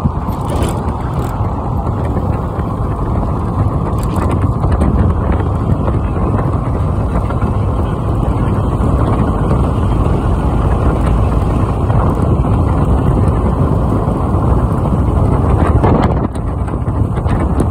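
Steady rushing wind and road noise from a vehicle driving at speed along a highway, heard from inside with the side window open.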